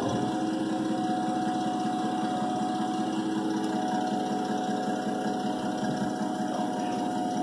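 Caterpillar forklift's engine picks up sharply and then runs steadily under a heavy load, with a steady whine over the engine note.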